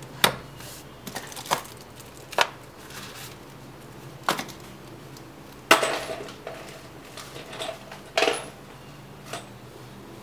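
Hard parts of a water-cooling kit being handled and set down on a tabletop: about eight sharp clicks and knocks at irregular intervals. The loudest comes about halfway through and has a short ring after it. A faint steady low hum sits underneath.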